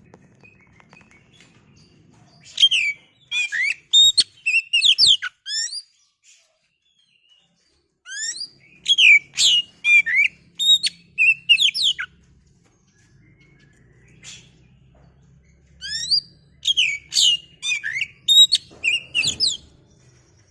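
Oriental magpie-robin (kacer) singing in three bursts of rapid, varied whistled phrases with quick rising and falling notes, each burst about three to four seconds long with short pauses between. It is a trigger song meant to provoke a caged kacer into singing.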